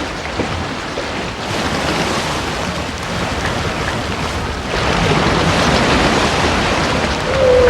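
Underwater sea noise with a few faint clicks, growing louder about two-thirds of the way through. Near the end a humpback whale's tonal moan begins, held on one pitch and then dipping slightly.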